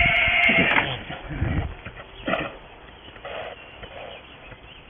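A pony's high-pitched whinny, held steady, stops under a second in. It is followed by a few fainter short sounds as the ponies jostle on dirt and straw.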